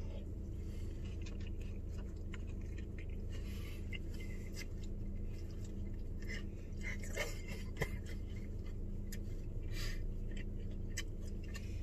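A man chewing a mouthful of brisket taco: scattered soft clicks and smacks of the mouth, over a steady low hum in a car's cabin.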